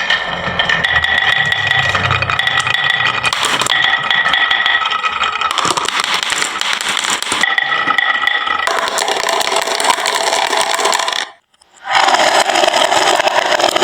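Many marbles rolling and clattering down a wooden marble run, a continuous rattle of clicks with some ringing. It cuts out briefly a little after eleven seconds in, then resumes.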